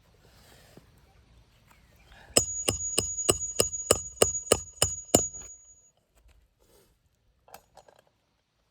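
Hand hammer driving a roofing nail, ten quick blows about three a second, each with a high metallic ring. A couple of faint clicks follow near the end.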